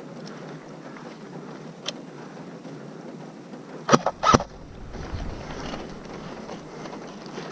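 Wind rushing over the microphone, with a faint click a couple of seconds in and two sharp cracks close together about four seconds in.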